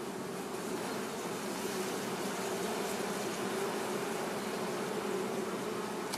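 Honeybees humming steadily over the open frames of a hive. A brief click sounds near the end.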